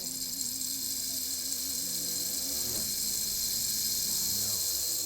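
A steady, bright hiss with a low wavering hum beneath it for the first two and a half seconds or so. The hiss stops suddenly at the end.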